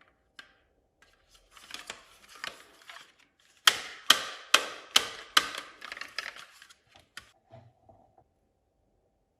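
Marbles rolling and clacking down a wooden HABA marble run: a light rattle at first, then five loud sharp knocks in an even rhythm, about two a second, followed by smaller clicks that die away.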